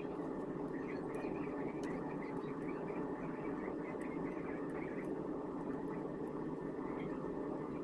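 Steady low background noise, with faint small clicks and ticks scattered through it.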